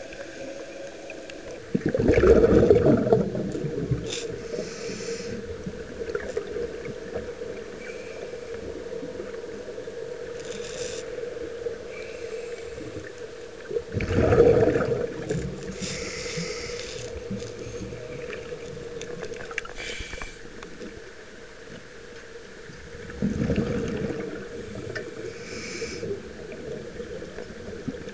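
Scuba diver breathing through a regulator underwater: three loud rushes of exhaled bubbles about ten seconds apart, with softer hissing inhalations between them, over a steady hum.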